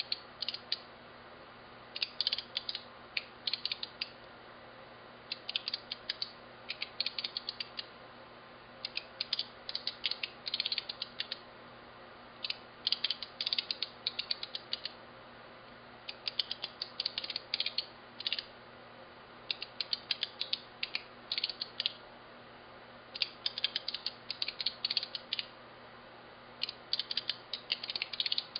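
Signalex electromagnetic flip-segment displays clicking as their vanes flip one segment at a time, in rapid runs of sharp clicks about two seconds long with a short pause between runs, each run one change of the six digits.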